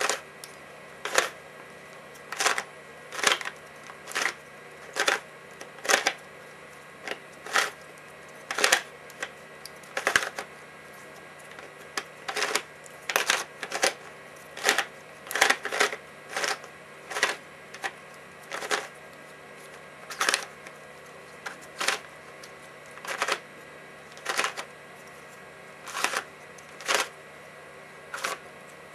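Layers of a custom 3x3x2 Rubik-type puzzle with ABS plastic parts being turned by hand: sharp plastic clacks at each quarter turn, singly or in quick pairs, about one a second at an uneven pace.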